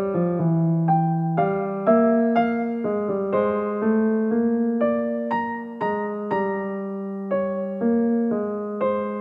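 Background music on a piano-toned keyboard: a slow, gentle melody of struck notes and chords, about two notes a second.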